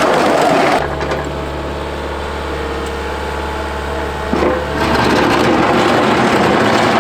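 Heavy machinery working: loud crunching, grinding noise at first, then a steady diesel-engine hum for about four seconds with one sharp click, then the loud crunching noise again, each change sudden.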